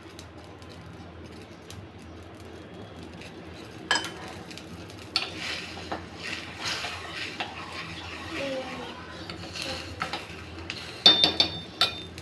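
A spoon stirring and scraping in a cooking pot, with sharp ringing clinks against the metal, loudest near the end. It is quiet for the first few seconds, with a single clink about four seconds in.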